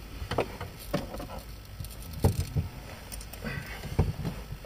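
Handling noise on a handheld camera's built-in microphone: irregular clicks, rubs and low thumps as fingers work the camera, with heavier thumps about two and four seconds in.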